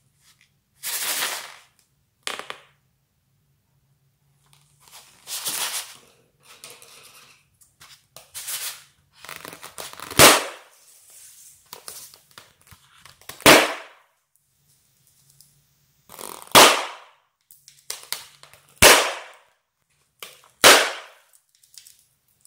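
Glitter-filled balloons popped with scissors: five sharp, loud pops about two to three seconds apart in the second half, after several hissing rushes in the first half.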